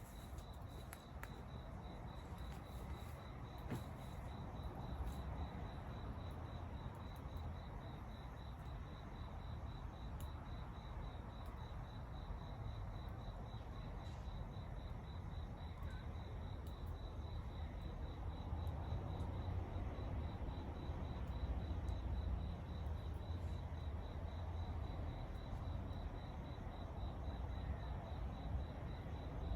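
Crickets chirping in a steady, fast-pulsing trill over a low background rumble, with a few faint scattered clicks.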